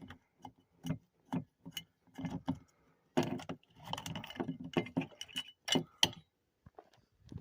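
Small metal screws and RV door-handle hardware clicking and clinking as the screws are backed out by hand: a few separate sharp clicks at first, then a denser clatter of metal on metal from about three seconds in.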